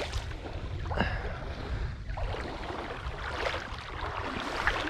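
Rushing creek water with wind rumbling on the microphone, and a few short splashes as a hooked smallmouth bass thrashes at the surface.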